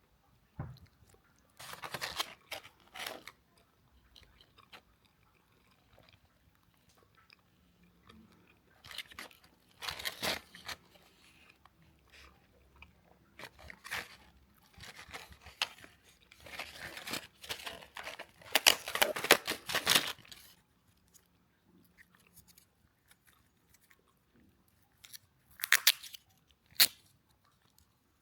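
Close-up chewing and crunching of crispy McDonald's French fries, heard as separate bursts with quiet pauses between them. The loudest run of crunching comes about two-thirds of the way through.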